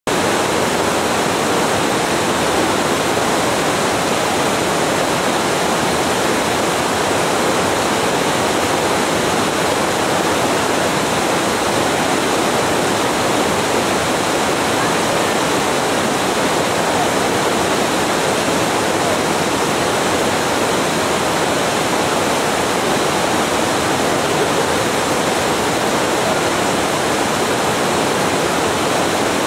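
Steady rush of water over shallow river rapids, a loud even noise that does not change.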